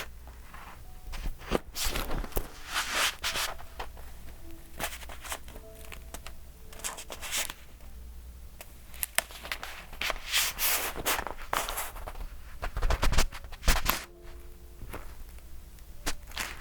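Paper pages of a thick, decorated A5 journal being turned and handled, with irregular rustling swishes and light taps and clicks.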